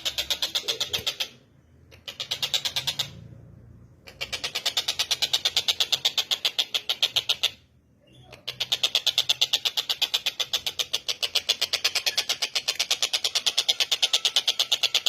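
Tengkek buto, a kingfisher, calling in a fast, high rattling series of short repeated notes, about six a second, broken by brief pauses.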